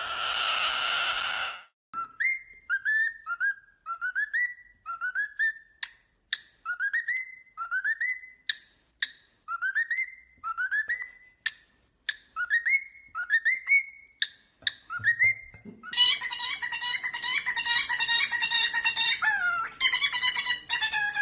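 A parrot whistling the same short rising note over and over, about one note every second, with sharp clicks between the notes. Near the end a denser, layered sound takes over.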